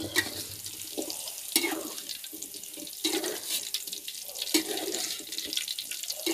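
Young jengkol beans frying in hot oil: a steady sizzle broken by irregular crackles and spatters.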